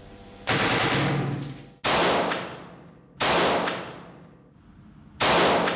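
Four loud bursts of air blasting sand through a rifle-test dust chamber. Each cuts in suddenly with a rushing hiss and fades away over about a second.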